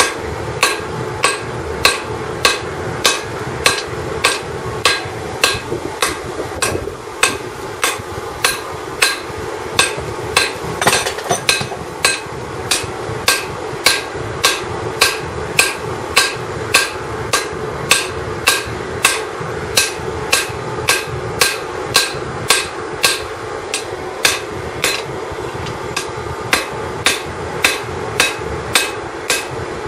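Hand hammer striking a red-hot leaf-spring steel blade on an anvil in a steady rhythm, about three blows every two seconds, with a short pause about seven seconds in. A steady rushing noise runs underneath the blows.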